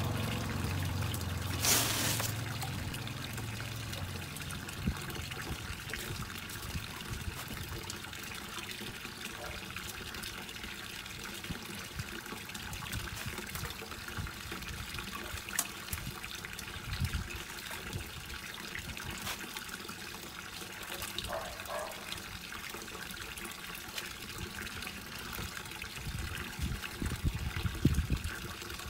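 Steady stream of water pouring from a pipe spout into a cement fish tank, splashing onto the water's surface. There is a brief louder splash near the end.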